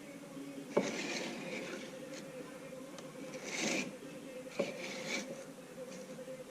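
Hand work on a Ford 9-inch differential third member: three sharp clicks or knocks of parts and tools, with scraping and rubbing between them, over a faint steady hum.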